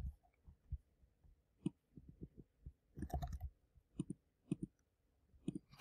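Soft, scattered keystrokes on a computer keyboard, a single click every half second or so with a quick run of several keys about three seconds in.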